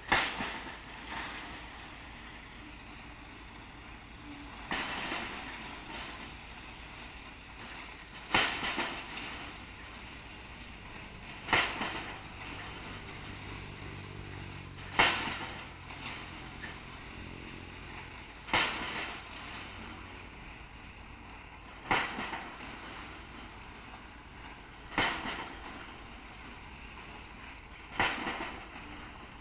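A pile driver's drop hammer strikes a precast concrete pile, nine heavy blows about every three and a half seconds, each ringing briefly. The rig's winch engine runs low underneath.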